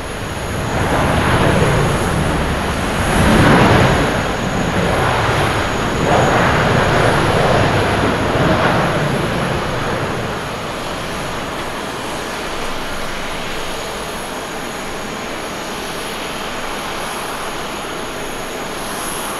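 Boeing 787's Rolls-Royce Trent 1000 jet engines running on the landing rollout. The engine noise swells loudly for several seconds, typical of reverse thrust used to slow the airliner, then eases to a steadier, lower rush as it decelerates.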